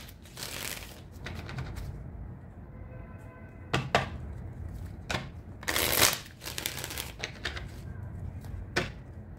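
A deck of tarot cards shuffled by hand, the cards slapping and sliding against each other in a series of short bursts, the loudest about six seconds in.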